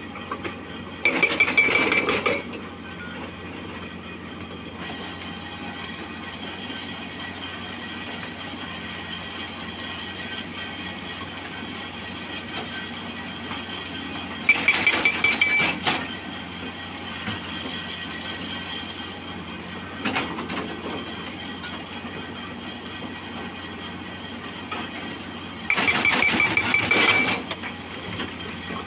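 Excavator running steadily, with three loud bursts of rattling, squealing metal of about a second and a half each: one about a second in, one midway and one near the end.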